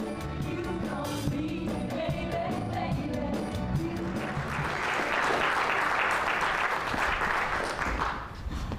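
Music with singing, giving way about halfway through to a theatre audience applauding, which fades just before the end.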